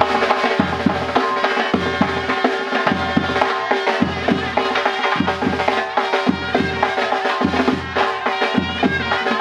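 Uzbek surnay, a double-reed shawm, playing a folk melody over a steady held note, with drums beating a rhythm underneath.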